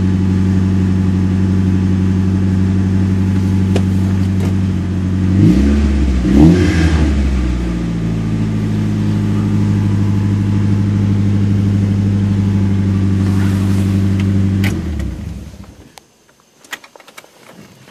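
Nissan SR20 inline-four idling fast while still cold, at about 1,400 rpm. It is revved briefly twice about six seconds in, settles back to a steady idle, then dies away as the engine is switched off about fifteen seconds in.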